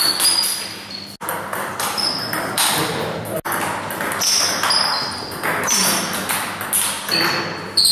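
Table tennis rally: the ball clicks off the bats and the table, each hit with a short high ping, in a quick irregular rhythm. The sound drops out briefly twice.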